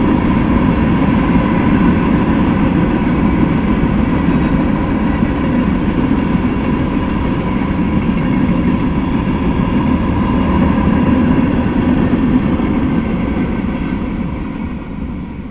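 Freight train of open-top hopper cars rolling past: a steady rumble of steel wheels on the rails, with a faint ringing tone over it. It dies away near the end as the last car clears the crossing.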